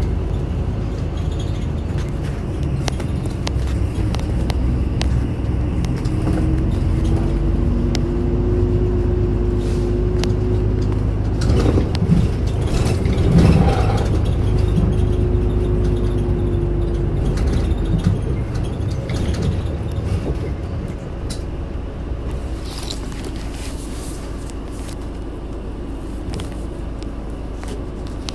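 Isuzu Erga Mio city bus's diesel engine running under way, heard from inside the passenger cabin, with a steady whine while the bus pulls. About halfway through there is a cluster of knocks and rattles, and in the last third the running sound settles quieter.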